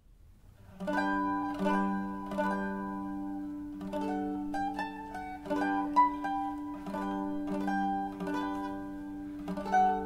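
Solo mandolin playing a melody, starting about a second in, its strings struck in a steady rhythm of roughly one stroke every three-quarters of a second over ringing low notes.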